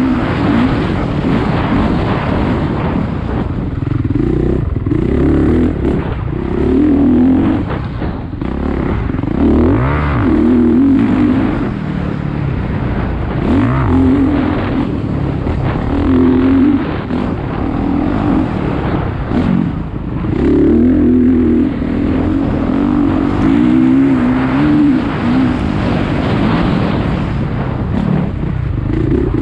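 A vehicle's engine being driven hard through laps: its pitch rises under acceleration and drops off again every second or two, loud and continuous.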